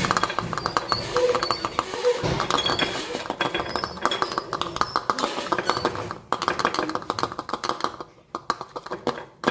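Small glass bottles clinking, with short high-pitched pings, over a dense rapid crackle of dried herbs being pushed into them.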